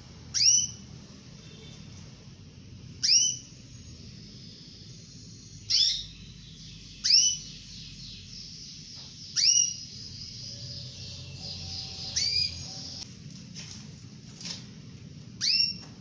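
Female canary calling to a male: seven short, loud upward-sweeping call notes, one every one to three seconds, with soft twittering between them about two-thirds of the way through.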